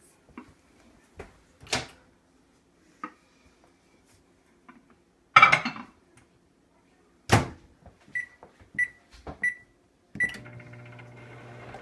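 Over-the-range microwave oven being loaded and started. A loud clatter as the stoneware pan goes in, the door shuts with a sharp knock, four keypad beeps as the cook time is entered, then the oven starts running with a steady hum.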